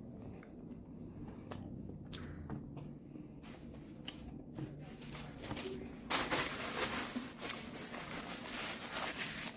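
Close-up mouth sounds of a person biting into and chewing a hot meatball sandwich: soft wet clicks and squishes, with a louder, noisier stretch of chewing from about six seconds in.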